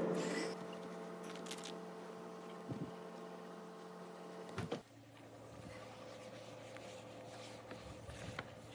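Steady mechanical hum made of several fixed tones. There is a knock about halfway through, after which the hum drops and changes pitch.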